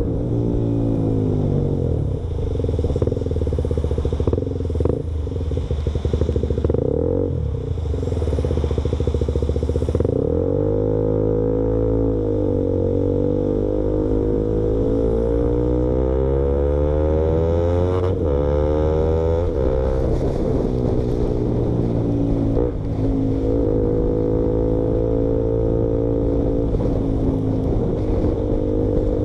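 KTM Duke motorcycle with its exhaust baffle removed, engine running loud, its note rising slowly and dropping back several times as the throttle is opened and closed.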